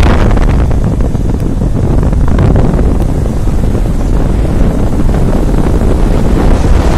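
Wind buffeting the microphone of a moving vehicle, a loud, steady rumble over the vehicle's own running noise.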